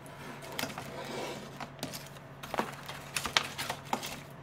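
Paper takeout boxes and a plastic tub being handled and set down on a table: scattered light knocks and rustles, a few at a time.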